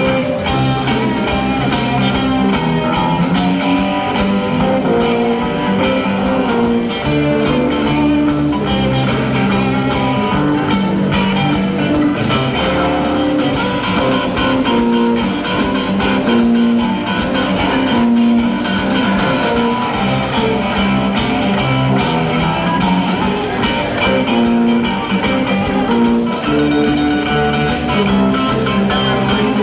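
Live rock band playing, with electric guitar over bass and drums in a steady beat.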